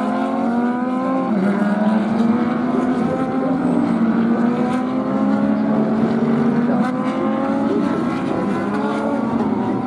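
GT race car engines running past on the circuit, their pitch climbing again and again as they accelerate up through the gears.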